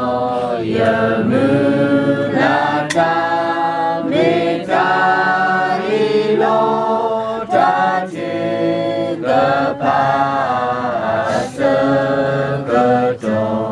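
A group of voices singing unaccompanied, a slow melody of held notes.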